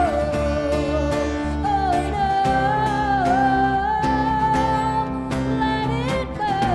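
Band music in an instrumental passage: a sustained, bending lead melody over bass, guitar and a steady drum beat.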